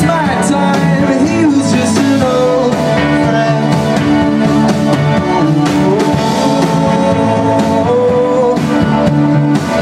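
Indie rock band playing live, with electric guitars, bass and a drum kit, and a man singing over the band.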